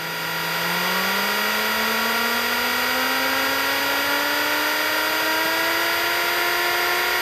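Cessna 150's Continental O-200 four-cylinder engine and propeller, heard from inside the cockpit, revving up for the pre-takeoff run-up to about 1700 rpm. It holds steady for about a second, then climbs smoothly and steadily in pitch.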